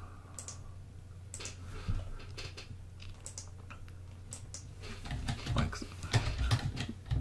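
A few scattered clicks of a computer keyboard and mouse as a number is typed into a field, over a low steady hum.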